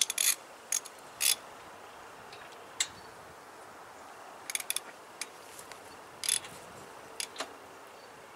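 Ratchet wrench clicking in short, irregular bursts as a spark plug is turned in with a socket on a standby generator's engine.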